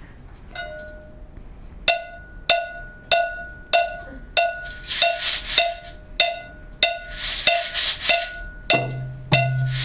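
Children's drum-circle percussion: a ringing struck instrument keeps a steady beat of roughly one hit every 0.6 seconds, with two spells of rattling partway through. A low drum comes in near the end.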